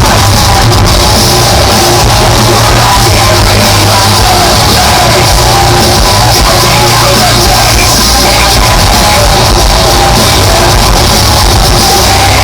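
Loud live melodic death metal from a rock band playing in concert, with full band and vocals.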